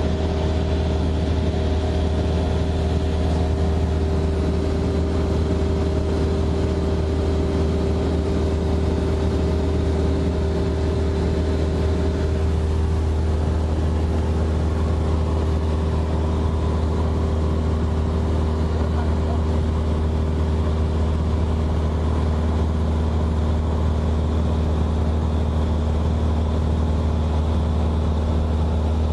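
Steady drone of a small propeller airplane's piston engine and propeller inside the cabin, with a deep rumble and a few steady tones. The engine note shifts about twelve seconds in.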